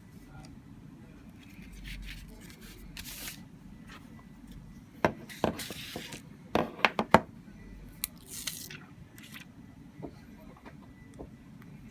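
Hands handling packaging: rustles and scrapes, then a cluster of sharp clicks and taps about five to seven seconds in.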